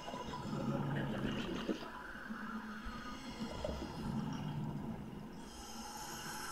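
A diver breathing underwater: bursts of exhaled air bubbling and gurgling past the microphone every second or so, with a hiss of inhaled air near the end.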